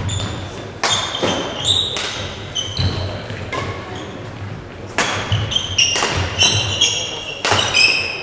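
Badminton doubles rally: sharp racket strikes on the shuttlecock about once a second, with shoes squeaking on the court floor and footfalls thudding between the shots.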